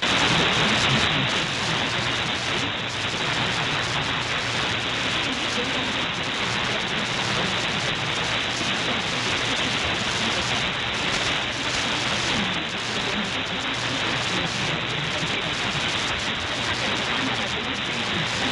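Shortwave AM reception on 9900 kHz in the 31 m band, heard through an SDR receiver: loud, steady hiss and static with a weak, indistinct signal underneath. The listener takes the signal for either Radio Free Asia or Radio Taiwan, or the Chinese CNR1 Firedrake jammer. The static comes up suddenly at the start.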